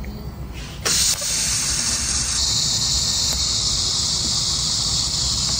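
TIG welding arc on thin .028-in titanium tube, struck about a second in with a short loud start and then a steady high hiss as the arc fuses the joint edge.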